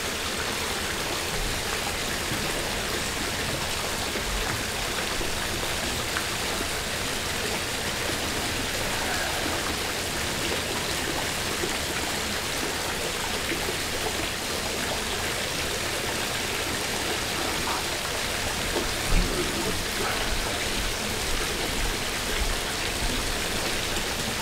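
Steady hiss of running or falling water, with a single knock about three-quarters of the way through.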